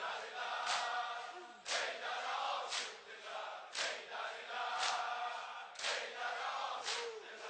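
Large crowd of Shia mourners chanting in unison, with the slap of chest-beating (sineh zani) struck together in time, about once a second.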